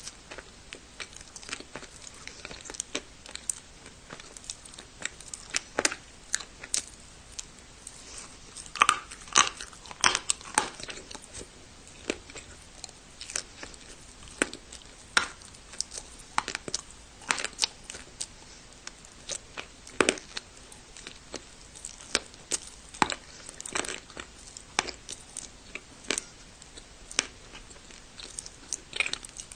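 Close-miked biting and chewing of dry, hard clay: irregular sharp crunches and crackles, with the loudest bites around ten seconds in and again around twenty seconds in.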